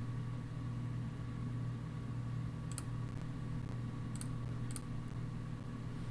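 Three sharp, isolated clicks at a computer, about a second and a half apart and then a half second apart, over a steady low hum.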